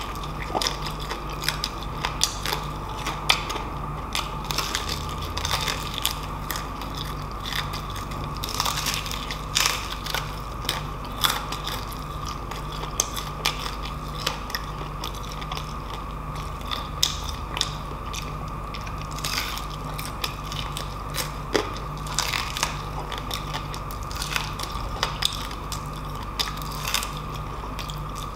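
Close-miked biting and chewing of deep-fried crispy pork knuckle, its crackling skin crunching in irregular sharp crackles throughout, over a steady faint hum.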